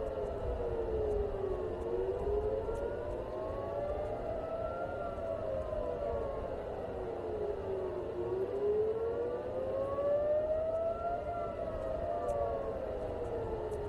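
Several civil-defence air-raid sirens wailing at once, out of step with each other. Each rises and falls slowly, about six seconds per cycle, over a low, steady rumble. This is the rising-and-falling warning signal of an air-raid alert.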